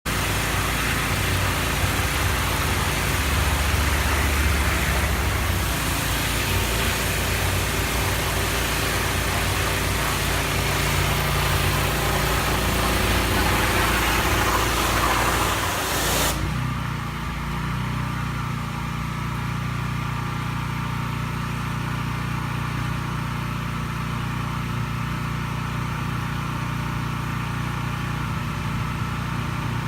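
Pressure washer jet spraying with a loud, even hiss over a steady engine hum. The spray cuts off suddenly about sixteen seconds in, leaving the engine running on its own.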